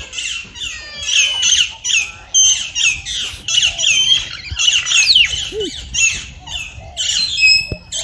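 Many small birds calling at once: a dense chatter of harsh squawks and chirps, several a second, overlapping throughout.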